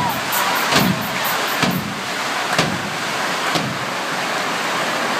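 Loud show music with a heavy thumping beat a little faster than once a second, over a dense wash of noise. The beats stop about three and a half seconds in, leaving the steady din.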